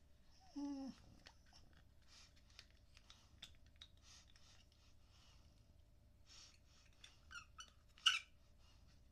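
Plastic nebuliser parts and packaging handled and fitted together: faint rustling and scattered light clicks, with a short falling tone about half a second in and a sharp plastic snap near the end.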